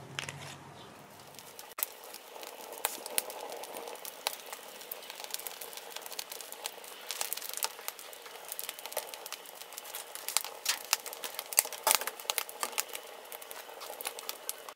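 Wood fire crackling under a barbecue grate, with marinated pork neck steaks sizzling on it. It is a dense run of sharp pops and snaps over a steady hiss, starting about two seconds in.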